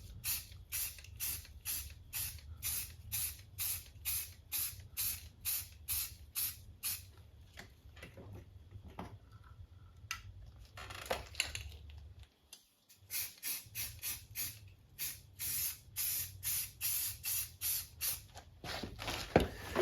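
Aerosol can of self-etching primer sprayed onto bare metal in short hissing bursts, about two to three a second. There is a pause of several seconds in the middle, then the spraying resumes.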